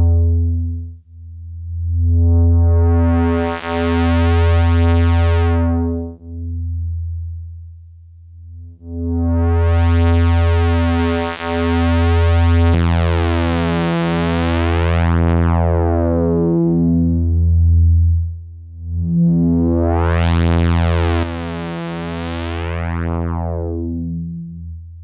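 Behringer Odyssey analogue synthesizer playing a low, buzzy bass note repeated about once a second. The filter is swept open and closed so the tone brightens and darkens three times.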